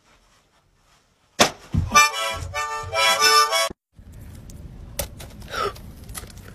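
A loud burst of reedy, accordion-like music lasting a little over two seconds, which cuts off abruptly. It is followed by a steady low background hiss with a few sharp clicks and one short falling squeal.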